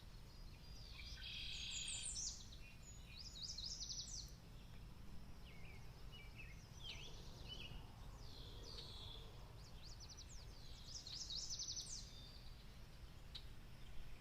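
Birds chirping and singing, with quick trilled phrases of high notes about a second in, around four seconds and again near eleven seconds, over a low steady background rumble.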